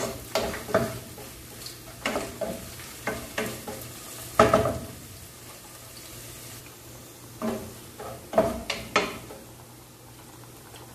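Wooden spatula knocking and scraping against a nonstick frying pan as sliced mushrooms are stirred, over the faint sizzle of frying. The knocks come in irregular runs, the loudest about four and a half seconds in. A steady low hum runs beneath.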